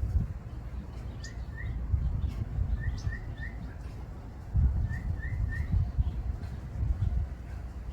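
A small bird calling short, rising chirps in quick groups of two or three, repeated three times, over an uneven low rumble.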